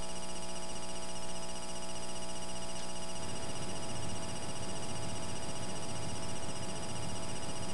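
Steady electrical hum and buzz with hiss, a room tone without speech; the low part turns rougher about three seconds in.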